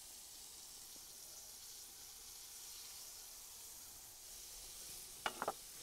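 Floured chicken thigh pieces sizzling in hot oil in a cast iron Dutch oven, a faint steady frying hiss as they sear. Two light clicks come near the end.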